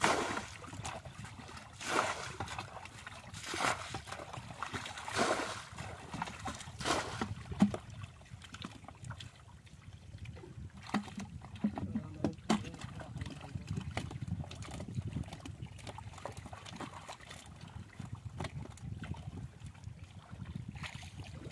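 Buckets of water being thrown out in a series of splashes, about one every second and a half, for the first seven seconds. After that comes softer sloshing and small splashes as hands and feet work through shallow muddy water.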